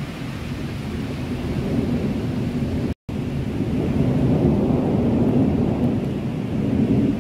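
Thunder rumbling over steady heavy rain in a thunderstorm, the rumble swelling in the second half. The sound cuts out for an instant about three seconds in.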